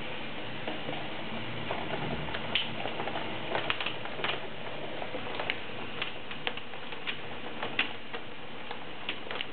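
Heavy rain with small hail: a steady hiss of rain, with irregular sharp ticks of hailstones striking a nearby hard surface, sometimes several close together.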